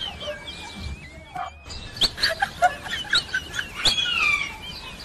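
Outdoor birdsong: birds chirping and calling, with a long wavering call early, a falling call near the end, and several sharp clicks about two seconds in. The sound cuts out briefly about one and a half seconds in.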